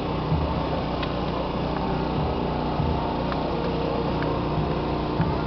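Steady engine drone with many low hum tones, unbroken, with a few faint clicks over it.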